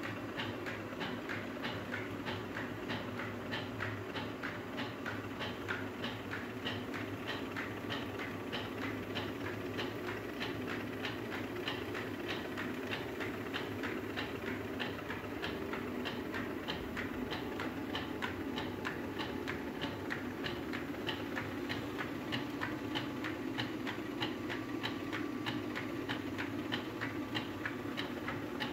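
Stone flour mill grinding wheat: a steady running hum with a regular clacking, about two or three clicks a second.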